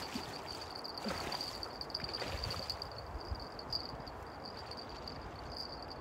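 Crickets chirping in a steady high trill over a faint background hiss, with a couple of soft rustles about one and two seconds in.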